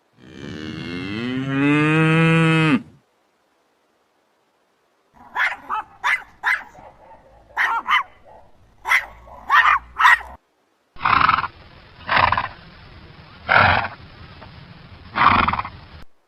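Three different animal calls one after another, with silent gaps between: first a long pitched call of about three seconds, like a cow's moo; then a quick run of short, sharp calls; then five harsh, noisy calls about a second and a half apart.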